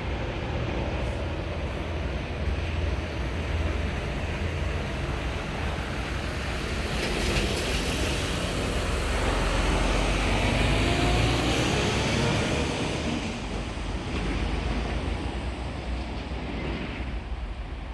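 UH-60 Black Hawk helicopter's rotor and turbine noise, a steady low drone. It swells louder and brighter in the middle for several seconds, then eases off again.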